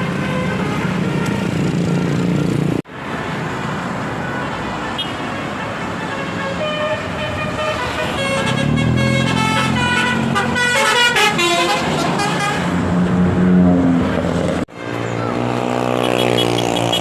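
Tour buses' basuri musical horns playing melodic tunes of stepped notes over a running bus engine. The sound comes in three short clips, with two abrupt breaks.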